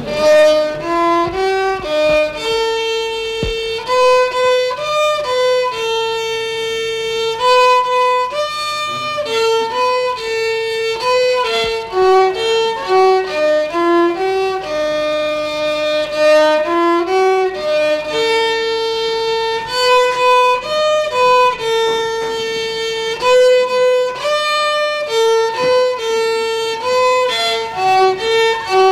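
A young boy playing a solo violin melody, bowing a tune of short moving notes and longer held ones.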